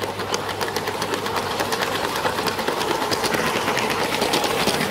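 Lego model train running with the camera riding on it: its small electric motor whirs under a rapid, dense clicking rattle of plastic wheels on plastic track.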